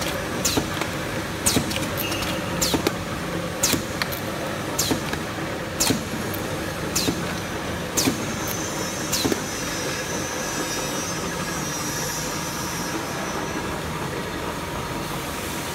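Popcorn can filling and sealing machine running with a steady hum and a sharp clack once a second, one for each machine cycle. The clacks stop about nine seconds in, and a faint high hiss carries on after them.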